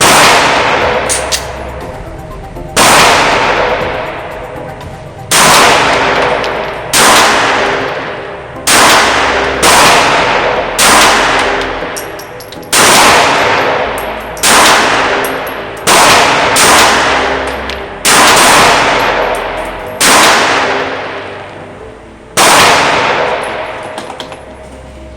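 Glock G25 pistol firing .380 ACP in slow, unevenly spaced shots, about fourteen in all. Each shot is sharp and leaves a ringing echo that fades over a second or two.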